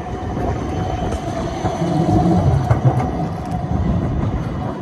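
Siemens Combino tram running on curved street track: a steady low rumble of wheels on rails with a thin, steady whine running through it.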